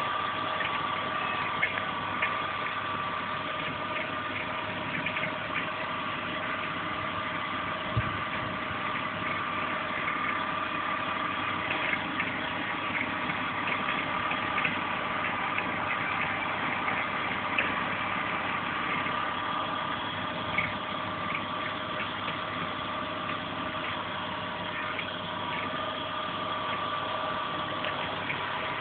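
E36 BMW 320i's straight-six engine idling steadily, with a steady whine and irregular sharp ticks every few seconds: engine noises that the owner cannot place.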